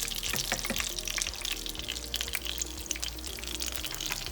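Background music over the steady crackling sizzle of panko-breaded chicken breasts frying in hot oil.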